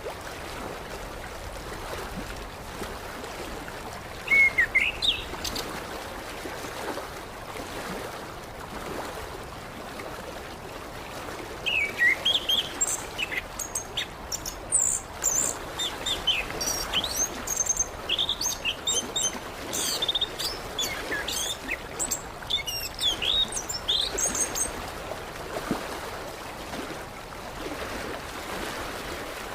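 Orange-headed thrush (anis kembang) singing: a short phrase about four seconds in, then a long run of quick, sweeping whistled notes from about twelve to twenty-five seconds, over the steady sound of running water.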